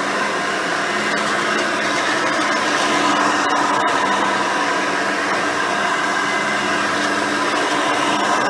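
Hoover Elite 350 upright vacuum cleaner running steadily with its brush roll spinning, with a few brief sharp ticks about three and a half seconds in.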